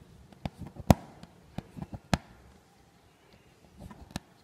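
Aari hook needle piercing fabric stretched taut on an embroidery frame while working a zari chain stitch: sharp, irregular clicks and taps, the loudest about a second in.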